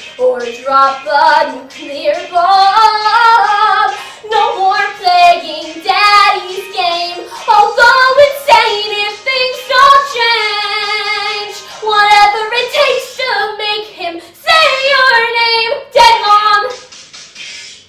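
A teenage girl singing a musical-theatre song solo, in loud sung phrases with a long held note with vibrato about ten seconds in; the singing stops just before the end.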